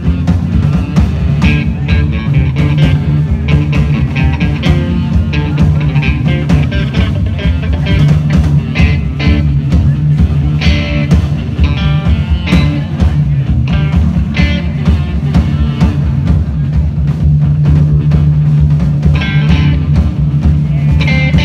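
Live rock band playing: electric guitar over a drum kit, with steady drum strokes throughout.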